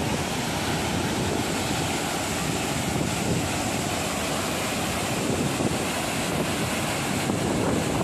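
Waterfall running high after typhoon rain, pouring down a rock face and rushing over boulders at its foot in a steady, loud rush of water.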